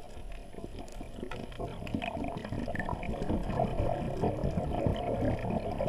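Muffled underwater bubbling and crackling, a dense low gurgle that grows steadily louder.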